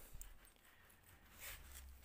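Near silence, with a few faint clicks and rustles as a gloved hand moves a nitro RC buggy chassis.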